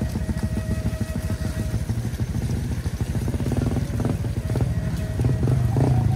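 Small motorcycle engine running at low revs, its exhaust pulsing steadily as the bike rolls slowly downhill on a slick mud track.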